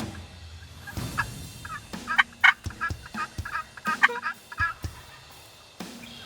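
Wild turkey tom gobbling: rapid rattling calls in the middle seconds.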